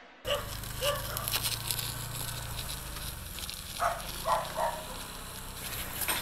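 Outdoor background sound: a low steady hum that fades out about three seconds in, light crackling, and a few short high squeaks, twice near the start and a cluster at about four seconds.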